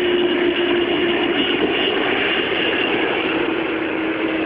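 Jet airliner on approach to land, a loud steady rush of engine noise with a low hum and a high whine that both drop slightly in pitch as it passes.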